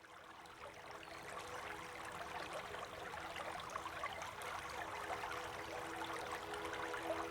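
Running water, an even rushing that fades in from silence and grows steadily louder, with faint sustained musical notes underneath.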